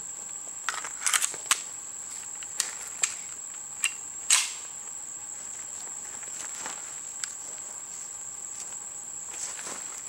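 Metallic clicks and clacks of a Hi-Point .45 ACP pistol being readied: a magazine seated and the slide worked, a cluster of clicks in the first two seconds and the loudest clack a little over four seconds in. A steady high-pitched insect drone, crickets or cicadas, runs underneath.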